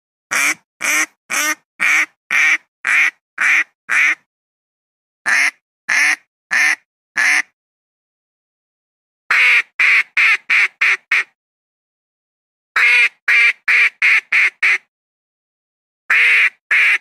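Philippine duck quacking in runs of short, sharp quacks, about two a second, with pauses of a second or two between runs; the runs near the middle and end come faster. Clean recording with dead silence between the quacks.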